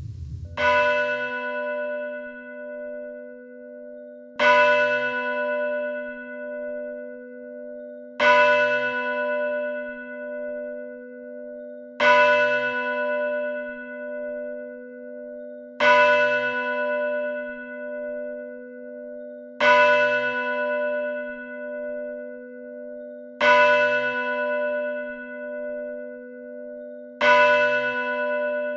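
A church bell tolled slowly, struck eight times at an even pace of about one stroke every four seconds, each stroke ringing on with a wavering hum into the next. The toll is the signal for the congregation to prepare to relight the white candle.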